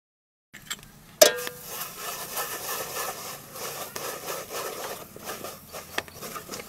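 A metal ladle knocks once on a large aluminium pot with a short ring, about a second in. It then scrapes and spreads a thick paste across the pot's bottom over a steady sizzle of hot oil.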